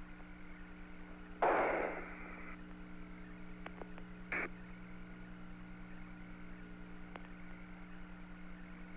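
Apollo 17 air-to-ground radio link with no one talking: a steady hiss and hum. A loud burst of static comes about one and a half seconds in, a shorter one near four and a half seconds, and a few faint clicks.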